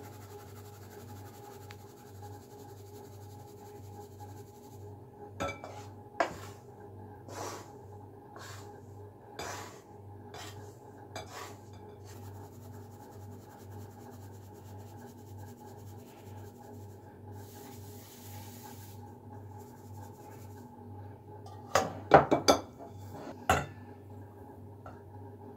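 Kitchen utensils at work on toasted flour: a wooden spatula scraping and tapping against a frying pan and a metal mesh sieve, with scattered clicks and scrapes, then a cluster of loud, sharp knocks of the spoon and bowls about three-quarters of the way in. A steady low hum runs underneath.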